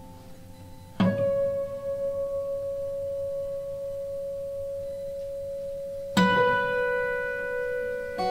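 Sparse, slow chamber music of long held notes, with a bowed cello among the instruments. A sharply struck note about a second in rings on as one steady, unwavering tone, and a second sharp attack about six seconds in adds a new held note with bright overtones.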